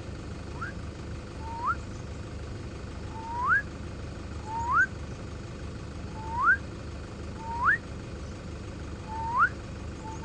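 A wild animal's whistled call repeated about eight times, each note a short rising whoop that swoops sharply upward, spaced a second or so apart over a steady low rumble.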